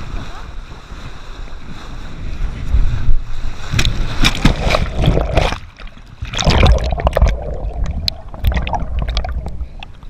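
Water rushing and spraying against a kneeboard-mounted action camera as it is towed through a boat's wake, with wind rumbling on the microphone. Heavy splashing comes about halfway through as the kneeboard tips in a wipeout, then it eases to gentler water sloshing near the end as the board floats.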